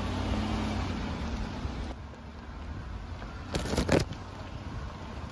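Truck engine running low as the truck backs slowly along a rough dirt road, with a short clatter of sharp knocks about three and a half seconds in.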